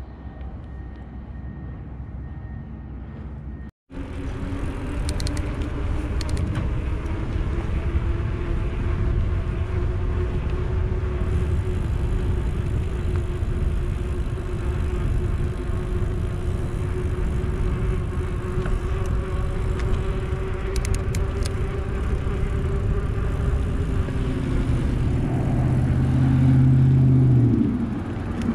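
Wind rushing over the microphone and tyre noise while riding a mountain bike, with a steady hum underneath. The sound cuts out for a moment about four seconds in, and near the end a louder low hum swells and drops in pitch.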